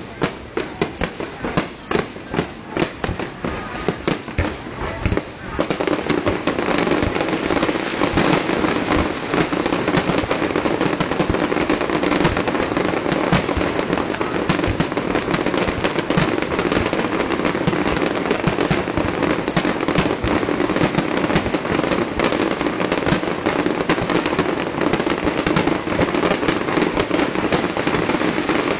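Aerial fireworks going off: separate sharp bangs in quick succession for the first five seconds or so, then a dense, continuous barrage of many shells bursting at once.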